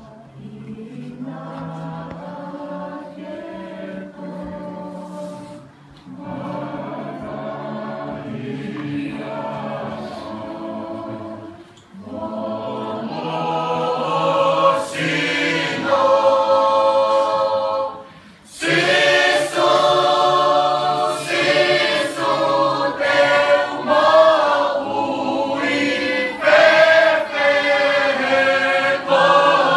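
A choir singing in sustained phrases of about six seconds, each breaking off before the next begins. It grows louder about halfway through and is fullest in the last third.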